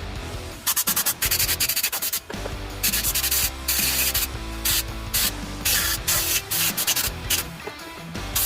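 Compressed-air blow gun fired in a string of short blasts and a few longer ones, blowing the last moisture out of a freshly washed power cord reel. Background music plays underneath.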